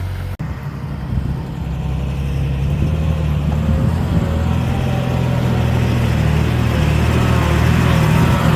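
Diesel engine of earthmoving machinery running steadily, with a sudden brief cut about half a second in, then running on and growing slightly louder.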